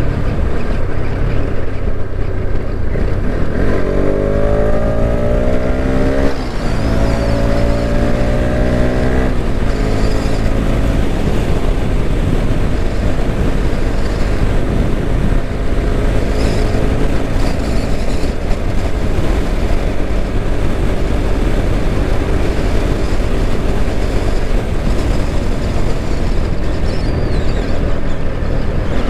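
Bajaj Pulsar RS 200's single-cylinder engine accelerating, its pitch rising through two gears with upshifts about six and nine seconds in. It then runs at a steady cruise under a constant rush of wind on the microphone.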